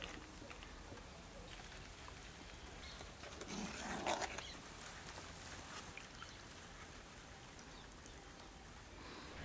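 Faint background with one brief animal call about four seconds in.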